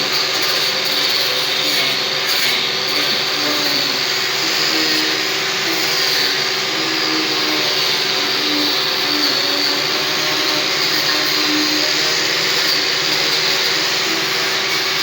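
Electric power tool running continuously without letting up: a steady motor whine over an even rushing noise.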